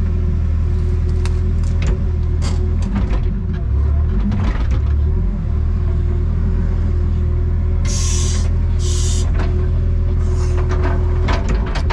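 Excavator's diesel engine running steadily with a constant whine over it, scattered knocks and cracks, and two short hisses about eight and nine seconds in.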